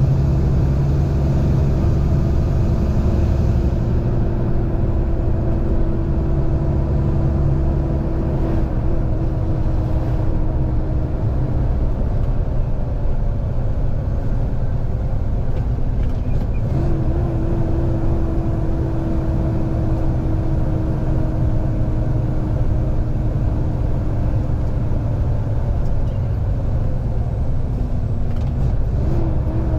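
Diesel semi-truck engine running under way with a loaded trailer, a steady low rumble heard from the cab. Its tone slowly sinks and then steps back up a few times.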